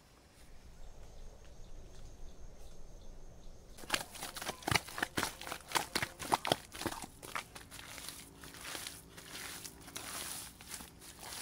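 Soil being dug and scooped by hand: a quick run of sharp crunches and scrapes starts about four seconds in, then eases into softer crackling of straw-mixed earth being handled.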